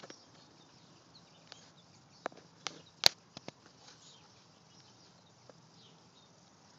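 Quiet room tone broken by a few light clicks and taps from a cardboard picture book being handled, the sharpest click about three seconds in.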